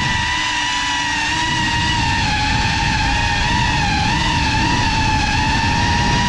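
Motors and ducted propellers of a GEPRC Cinelog 35 FPV cinewhoop drone whining in flight at a fairly steady pitch, dipping and rising slightly about four seconds in, over a low rumble of wind noise.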